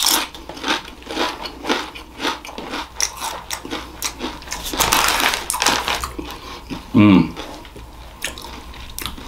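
Crunchy chewing of a Doritos Flamin' Hot tortilla chip: a run of crisp crunches, with a short hum from the eater about seven seconds in.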